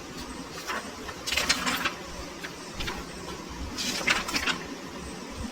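Three short clusters of rustling and clicking, as of small objects or paper being handled, over a low, steady background.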